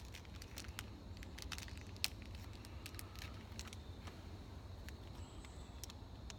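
Scattered light clicks and taps of handling, over a steady low rumble.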